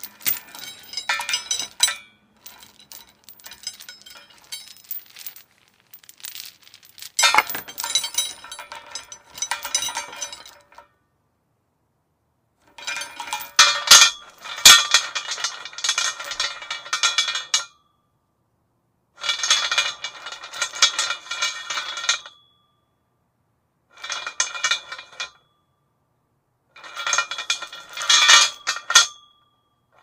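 A metal chain rattling and clinking against a metal post in repeated bursts of one to five seconds, with short silent pauses between them and a faint metallic ring at the end of some bursts.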